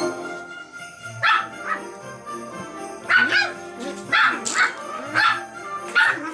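Puppies yapping in rough play: a string of about eight short, sharp, high barks starting about a second in, over background music.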